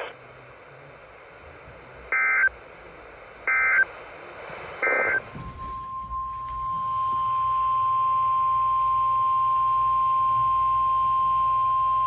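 NOAA weather radio alert coming through a Midland weather radio's speaker: three short data bursts of the SAME header, then, from about five and a half seconds in, the steady single-pitch warning alarm tone that announces a severe thunderstorm warning.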